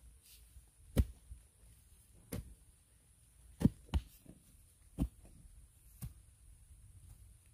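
A bamboo pole driven down into clay soil to dig a hole, about six dull thuds at an uneven pace.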